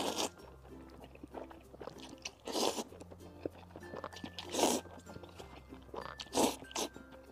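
Close-miked slurping and chewing of spicy instant noodles: three loud slurps about two seconds apart, with wet chewing between them.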